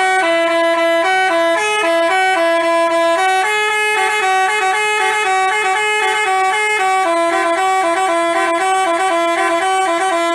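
Telolet basuri musical bus horn playing a quick tune of stepping horn notes, then cutting off suddenly.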